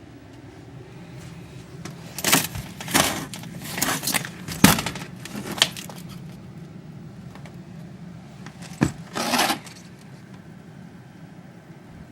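A front door being forced open against drifted snow: a run of short rattling and scraping noises, with a sharp knock about five seconds in and another click and scrape near the end.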